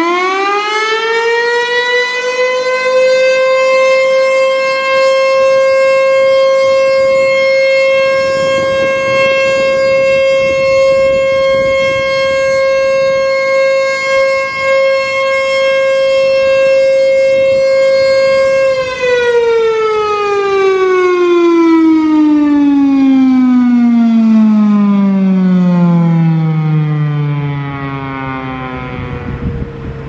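Federal Signal Thunderbolt 1000 single-tone siren sounding a short alert: it finishes winding up at the start, holds one steady tone for about eighteen seconds, then winds down in a long falling glide. Its rotator is broken, so the horn does not turn and the tone stays at an even loudness rather than swelling and fading.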